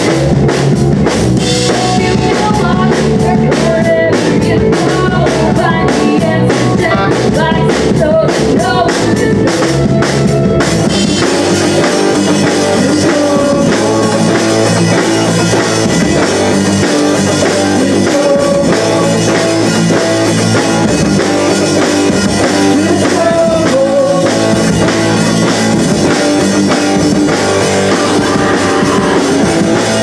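Live rock band playing through amplifiers: electric guitars and a drum kit, loud. For about the first ten seconds the band plays in sharp, separate hits, then it settles into a dense, continuous full-band sound.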